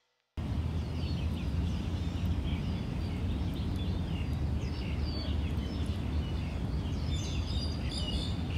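Outdoor ambience cutting in abruptly a moment in: small birds chirping in quick, scattered calls, busier near the end, over a steady low rumble.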